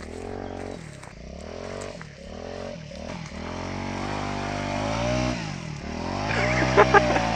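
Honda CRF450 dirt bike's single-cylinder four-stroke engine revving up and dropping back over and over as it is worked through boggy ground, with two sharp knocks near the end.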